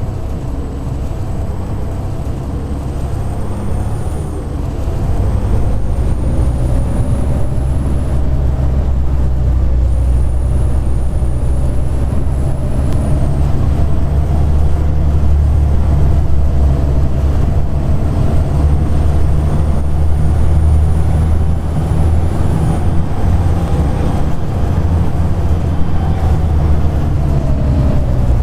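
Volvo B7TL double-decker bus heard from on board, its engine running under way and getting louder about four seconds in as it pulls harder. A thin high whine, the loud "hoover" sound, climbs in pitch and drops back about four times.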